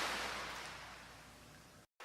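Recorded crash of a breaking wave, its wash of noise dying away steadily and then cut off abruptly just before the end.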